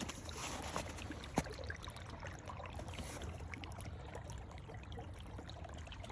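Creek water trickling beneath the ice, with footsteps crunching in snow and one sharper crunch about a second and a half in.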